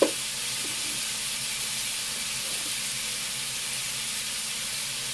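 Beef skewers sizzling steadily as they fry in an oiled pan over medium heat. One sharp knock right at the start.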